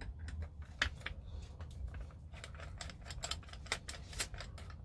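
Long Phillips screwdriver turning out the screw deep inside an airsoft M4's stock buffer tube: irregular light metallic clicks and ticks as the tool works and shifts in the tube.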